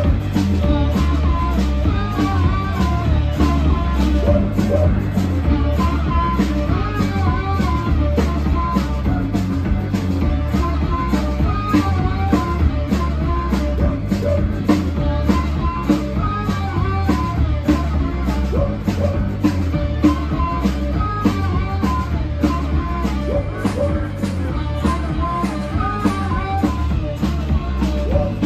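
A live band playing an upbeat rock song with a steady beat, acoustic guitar and keyboard.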